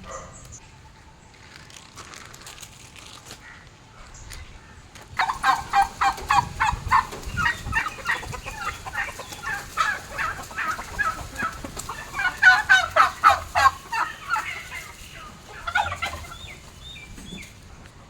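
Domestic poultry, hens with a turkey among them, calling in rapid runs of short clucks from about five seconds in. The calls are loudest a little past the middle.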